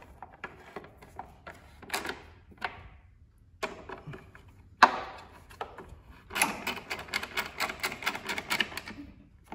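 Quarter-inch hand ratchet clicking as screws are snugged down gently, with a single sharp knock about five seconds in and a quick run of ratchet clicks near the end.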